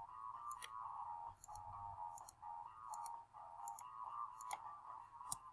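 Faint computer mouse clicks, several scattered irregularly, over a faint steady hum.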